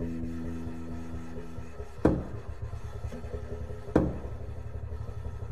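Sparse background music of low plucked double-bass notes: one note rings on and fades, then new notes are plucked about two seconds in and again near four seconds, each dying away.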